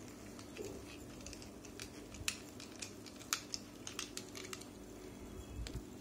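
Faint, irregular clicks and ticks of a small screwdriver backing screws out of the plastic casing of a reverse-osmosis low pressure switch.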